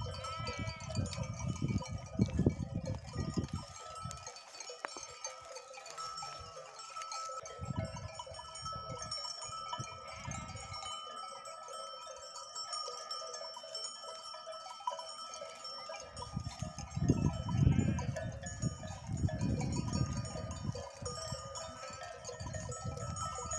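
Livestock bells on a grazing flock of sheep and goats, ringing and clinking steadily, with gusts of wind rumbling on the microphone in several stretches.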